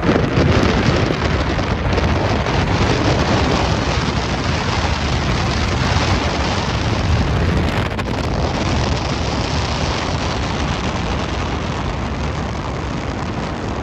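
Wind buffeting the microphone and road noise from a moving car, filmed at its open window.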